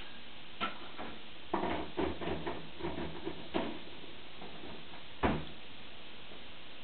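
Dog food being scooped from a container into a bowl: a click, about two seconds of pattering rattle, then one sharp knock about five seconds in.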